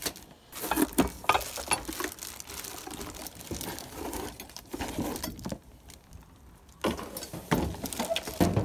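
Plastic wrapping rustling and crinkling with irregular light knocks as a hand rummages through the bagged parts of a strut spring compressor in a cardboard box, with a short lull about halfway through.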